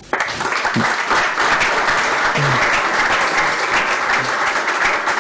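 Audience applauding: dense clapping that starts all at once and holds steady.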